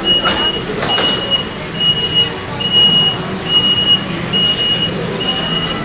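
A high-pitched electronic beeper repeating steadily at one pitch, a little more than one beep a second, over the general din of a busy street. A few sharp clatters cut through near the start and again near the end.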